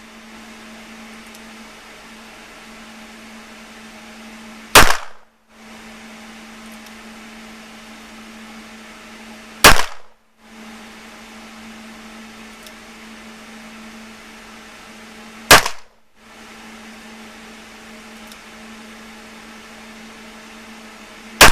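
Four handgun shots fired one at a time, about five to six seconds apart, over a steady low hum.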